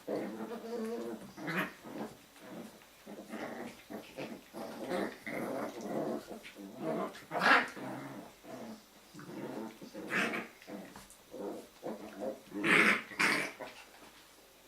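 Jack Russell Terrier puppies growling at each other in play, a steady run of short growls broken by several louder, sharp yelps.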